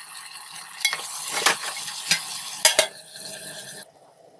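Mutton gravy sizzling in a large aluminium pot as a wooden spatula stirs it, with a few sharp knocks and scrapes of the spatula against the pot. The sizzle drops away near the end.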